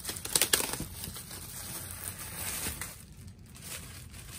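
Clear plastic bag crinkling and rustling as it is pulled off a drill, with a few sharp crackles about half a second in.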